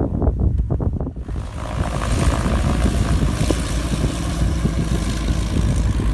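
Light piston airplane's engine and propeller running as it taxis past, with a steady full noise setting in about a second in. Wind rumbles on the microphone at the start.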